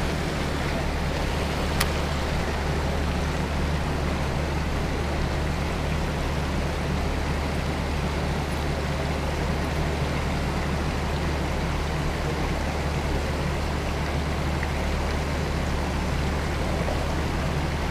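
Steady low rumble with an even hiss over it, unchanging throughout, with one faint click about two seconds in.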